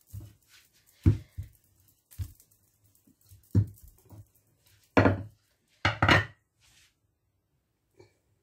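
Wooden rolling pin knocking and rolling against a marble countertop while thin dough is rolled out: a run of sharp knocks, with two louder, longer strokes about five and six seconds in.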